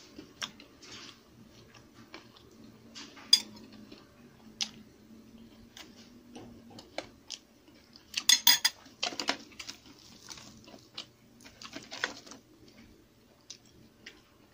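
Metal spoon clinking against ceramic plates and bowls, with a quick cluster of sharp clinks about eight seconds in and scattered lighter taps of tableware around it.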